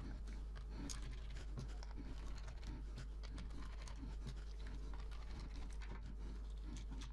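Faint scratching and scattered small clicks of hands and a small tool working on an opened laptop's internals, over a steady low hum.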